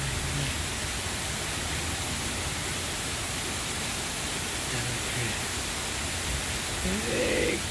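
Heavy rain falling steadily during a thunderstorm, a constant, even hiss.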